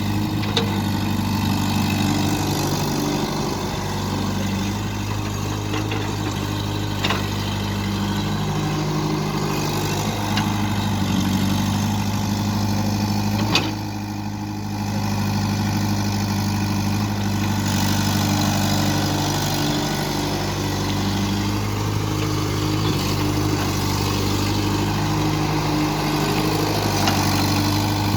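The diesel engine of a JCB 3DX backhoe loader runs steadily, rising and easing every few seconds as the machine works. A few brief sharp knocks are heard.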